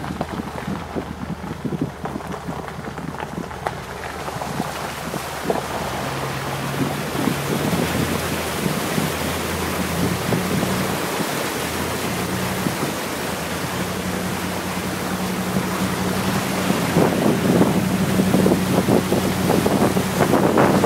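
Jeep Grand Cherokee ZJ's 5.9-litre V8 running steadily while the truck wades through deep floodwater, with water rushing and splashing against the body. It grows louder and more splashy over the last few seconds.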